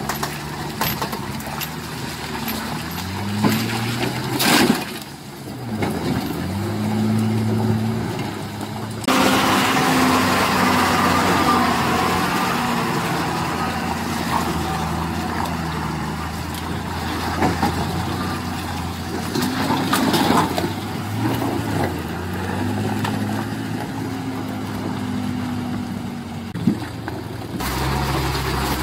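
Heavy multi-axle diesel goods trucks labouring through deep mud, their engines revving up and down under load as they crawl forward. A couple of short, loud hisses break in, about four and a half seconds in and again around twenty seconds.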